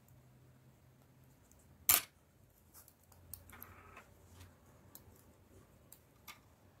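Thin double-pointed knitting needles clicking softly as stitches are worked, with yarn rustling; one sharper click about two seconds in, and a few faint ones after.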